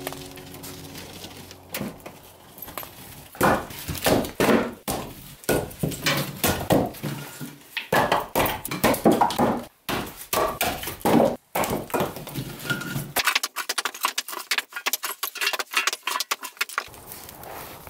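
Split firewood being stacked by hand into a woodpile: many short, sharp wooden knocks and clatters as each piece is set down against the others.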